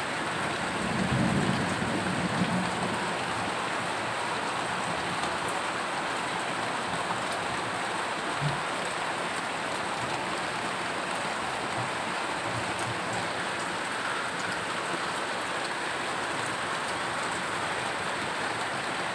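Steady rain falling, an even hiss throughout, with a low rumble in the first couple of seconds and a single short knock about eight seconds in.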